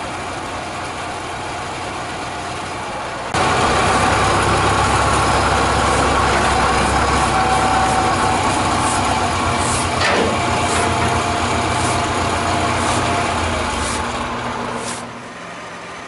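Farm tractor engine running, steady at first, then suddenly louder from about three seconds in as it works the loader with a heavy slab in the bucket, easing off near the end.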